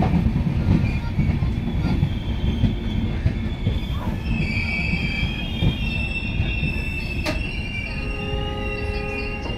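LHB passenger coaches of an Indian Railways express running past at speed: a continuous rumble of wheels on the rails. A steady high-pitched wheel squeal joins about halfway through, with a single sharp click a little after.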